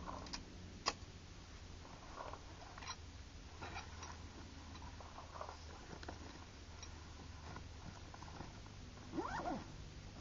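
Rifle and gear handling as the Nemesis Arms Vanquish takedown rifle is packed into its backpack: a sharp click about a second in, then scattered light clicks and rustles, and a short rising-and-falling squeal near the end.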